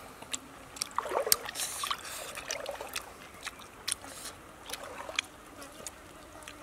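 A person chewing steamed turtle meat, making a string of irregular sharp mouth clicks and smacks.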